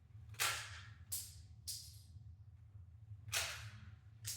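Blank-firing 2011-style pistol shooting 9mm blanks: five sharp cracks at uneven intervals, the first three about two-thirds of a second apart, then a gap of over a second and a half before the last two. The pistol is cycling and firing shot after shot.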